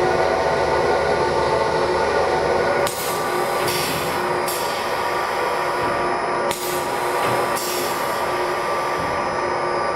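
Edge-banding cutting machine running with a steady mechanical whine. It dips briefly twice, about three and six and a half seconds in, and each dip is followed by a hissing stretch.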